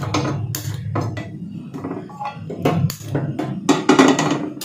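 Metal cooking pot being handled on a gas stove's burner grate: a run of clattering metallic knocks over a steady low hum.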